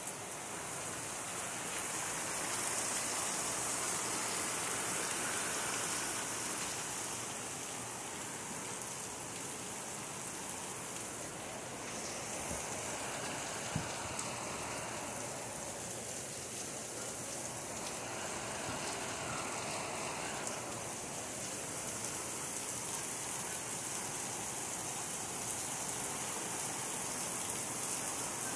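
Heavy rain falling steadily, swelling and easing a little in strength, with a single short tap about halfway through.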